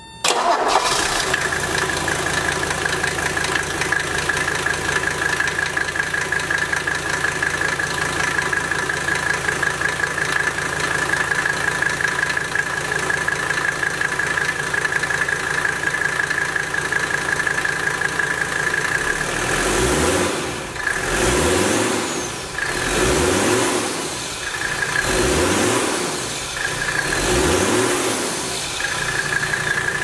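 Mercedes W123 OM617 five-cylinder turbodiesel starting at once and idling with its air intake removed, so the bare turbocharger's whine is heard along with the diesel clatter. In the last third the engine is revved up and back down about five times.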